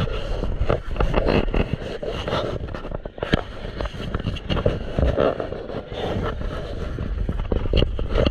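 Boat under way: its motor running with steady rushing noise and irregular knocks and bumps.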